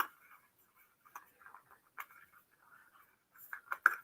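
Scattered light clicks and taps with faint rustling from small gadget packaging being handled, a few louder clicks near the end.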